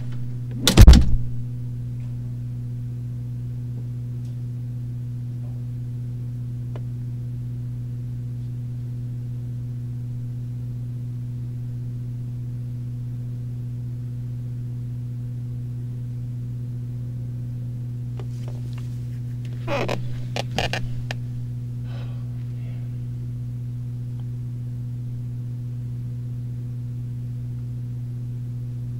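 Steady electrical mains hum on an old surveillance-video soundtrack. A door shuts hard about a second in, and there is a brief sound of someone shifting in a chair around twenty seconds in.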